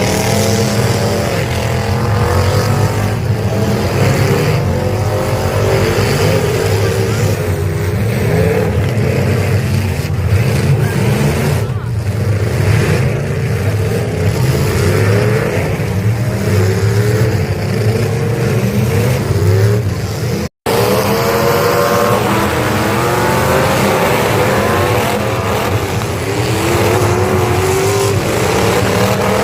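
Car engines running hard and revving up and down again and again. The sound cuts out for an instant about twenty seconds in.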